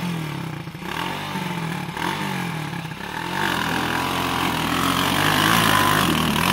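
Cobra 200 ATV engine revving, its pitch rising and falling several times, then running louder and steadier from about halfway through.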